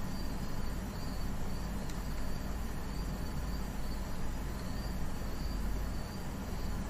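Cricket chirping faintly at an even pace, a little more than once a second, over a steady low hum and hiss.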